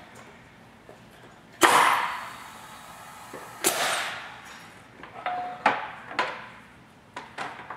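Tippmann Clicker 700 air-powered die-cutting press cycling on an embossing test: a sharp clack with a rush of air about a second and a half in as the press comes down, and a second clack and rush of air about two seconds later as it lets go. Lighter clicks and knocks follow as the tray under the press is handled.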